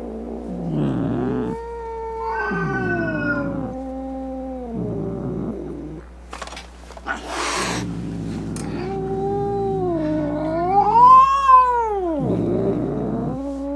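Domestic cat yowling angrily in a series of long, drawn-out calls that rise and fall in pitch. A brief noisy stretch comes about seven seconds in, and a long wavering yowl in the second half is the loudest.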